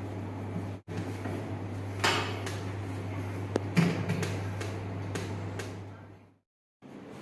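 Steady low hum with a few sharp knocks, the loudest about two seconds and about four seconds in; the sound cuts out briefly near the end.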